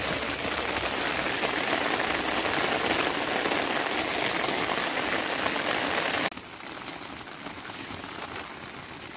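Steady rain falling on a OneTigris Cosmitto tent. About six seconds in it drops suddenly to a quieter hiss.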